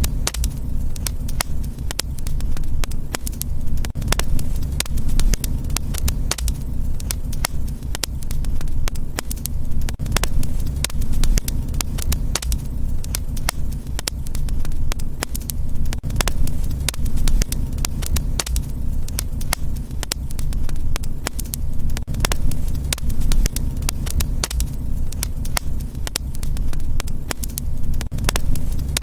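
Fireplace fire crackling: many sharp, irregular pops and snaps over a steady low rumble.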